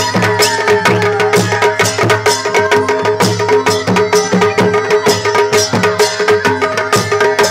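Pahadi folk wedding music with no singing: a steady held drone with rapid, even drumbeats.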